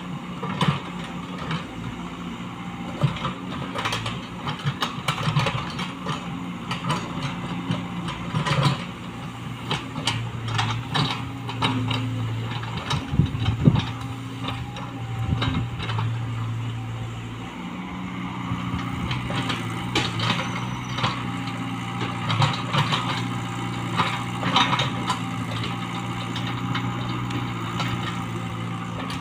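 Komatsu PC75UU mini excavator's diesel engine running under working load, its note rising and falling as the arm and bucket move. Repeated knocks and clanks come through the whole stretch as the bucket works the soil.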